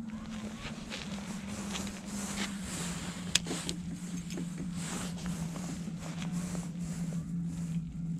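Clicks and ticks from handling an ice-fishing rod's spinning reel, the sharpest about three and a half seconds in, over a steady low hum that slowly sinks in pitch and a low rumble.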